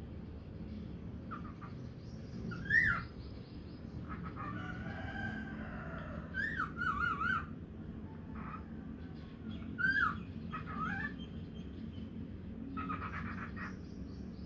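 Pet cockatiels chirping and whistling: short upswept whistles about three seconds and ten seconds in, a quick warbled run of notes a little past the middle, and softer chatter between.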